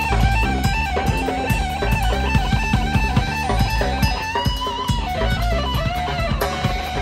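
Live rock trio playing an instrumental passage. An electric guitar plays a lead line of sustained notes that bend in pitch, over bass guitar and a drum kit.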